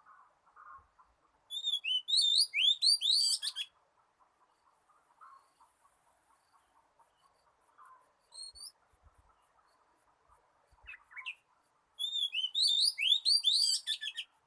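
Oriental magpie-robin singing: two runs of rapid, sweet whistled notes, one a couple of seconds in and another near the end, with a few short notes between.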